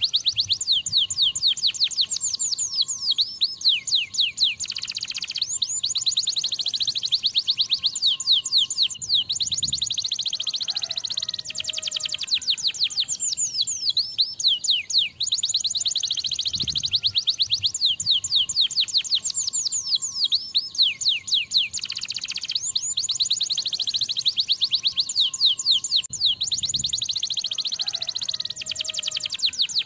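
Domestic canary in full, vigorous song: long rapid trills of quickly repeated high downward-sweeping notes, broken by short pauses every few seconds.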